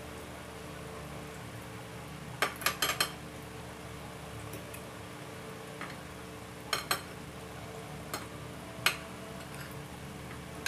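Fork and spoon clinking against a plate while eating: a quick run of four clicks about two and a half seconds in, a pair near seven seconds, then two single clicks, over a steady low hum.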